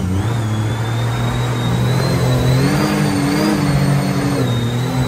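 Jet boat engine running hard at speed, its pitch climbing a little about halfway through, with a thin wavering high whine over it.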